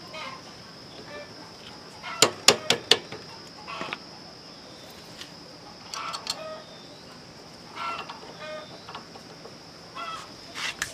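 Chickens clucking in short calls at intervals, with a quick run of four sharp clicks about two seconds in and a few single clicks later.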